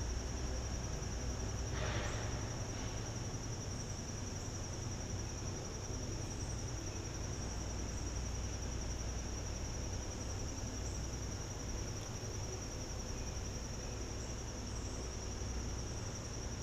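Chorus of insects, a steady unbroken high-pitched trill, over a low outdoor rumble, with a brief soft rustle about two seconds in.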